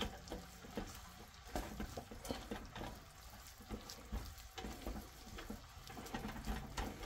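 A spatula stirring and scraping through onions and garlic sautéing in butter and white wine in a ceramic nonstick pan, in short, irregular strokes over a faint sizzle.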